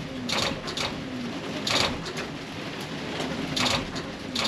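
Short mechanical clicks and rasps a second or two apart, with no engine cranking, as the start switch is tried on a Setra coach whose 24-volt starter batteries are drained.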